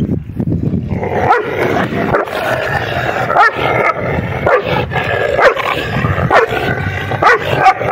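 Two dogs snarling and barking at each other in a fight, a rapid string of harsh, pitched snarls starting about a second in.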